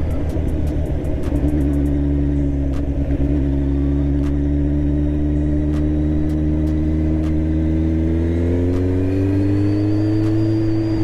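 Kawasaki Z1000's inline-four engine through an aftermarket SC Project exhaust, running at a steady low speed under riding load. The engine note climbs gradually over the last few seconds as the bike accelerates.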